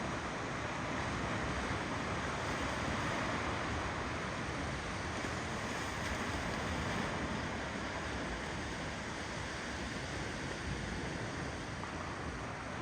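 Ocean waves rolling onto the shore: a steady wash of surf with gentle swells in level and no separate breaks standing out.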